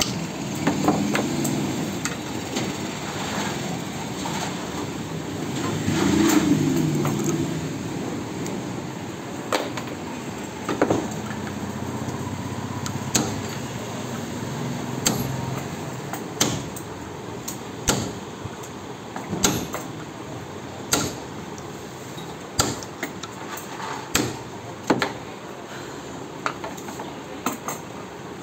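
Irregular sharp knocks and taps of tool work, coming about once a second through the second half, over a steady background noise.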